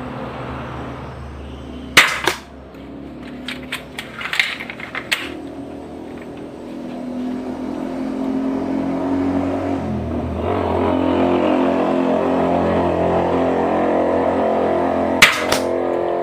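An 85 lb pistol crossbow firing: a sharp snap about two seconds in, followed by a cluster of lighter clicks and another snap near the end. A steady droning hum with several pitches builds up about halfway through.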